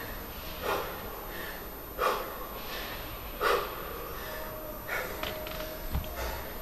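A man breathing hard after intense exercise, with deep, noisy breaths about once a second as he catches his breath.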